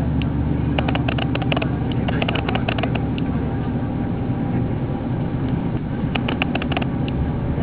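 KiHa 8500 series diesel railcar running, a steady low engine hum with bursts of light clicking and rattling on top.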